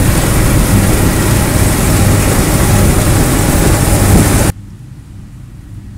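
Deutz-Fahr 4075 HTS combine harvester running at close range while harvesting barley: a loud, steady engine drone under a dense rush of threshing noise. About four and a half seconds in, it cuts off suddenly to a much quieter, more distant engine rumble.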